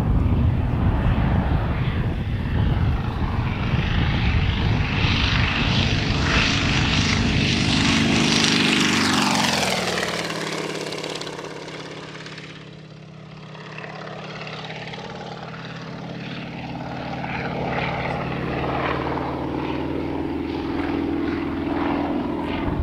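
Yak-55M aerobatic plane's nine-cylinder M-14P radial engine and propeller in flight, loud and close. About nine seconds in, the engine note drops sharply as the plane passes by. It fades, then swells again, climbing in pitch over the last few seconds.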